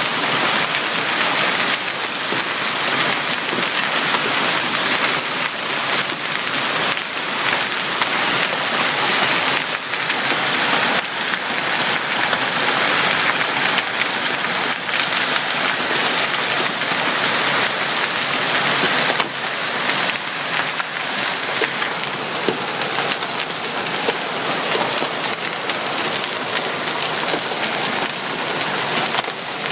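Large hailstones, golf ball to baseball sized, pounding down with rain: a dense, unbroken clatter of many impacts.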